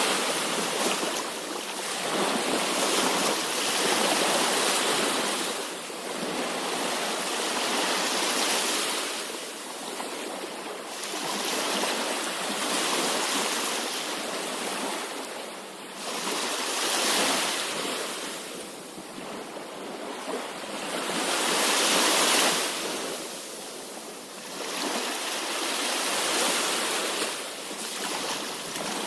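Sea waves breaking and washing in, a continuous rush that swells and falls back every few seconds.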